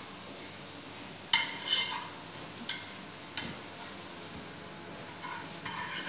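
A spatula stirring melting butter in a frying pan, clicking and scraping against the pan. A few sharp taps come in the first half, then a scattered run of lighter clatter near the end.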